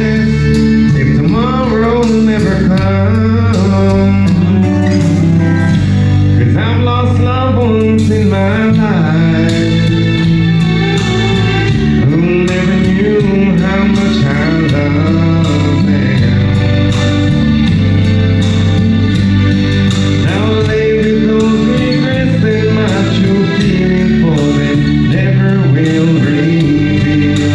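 Man singing a country song live into a microphone over backing music.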